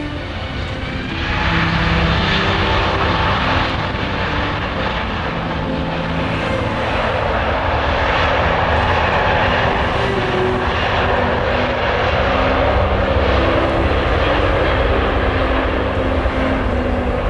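Jet noise from the four engines of an Airbus A380 passing close by on its landing. It swells about a second in and stays loud and steady.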